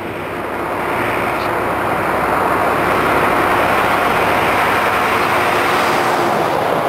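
Semi-truck passing close at highway speed: tyre roar over a steady diesel engine drone, swelling over the first few seconds as it nears and holding loud as it goes by.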